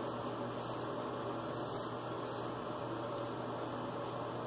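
Straight razor scraping through lathered stubble on the cheek in a series of short strokes, each a brief crisp rasp, over a steady low hum.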